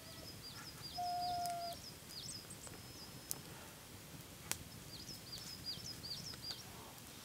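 Small birds chirping: two quick runs of short, high, repeated chirps, with a single steady whistled note lasting under a second about a second in and a couple of faint clicks.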